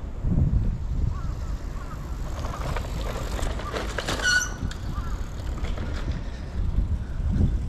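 Outdoor street ambience: low rumble of wind and distant traffic, with a brief high ringing tone about four seconds in.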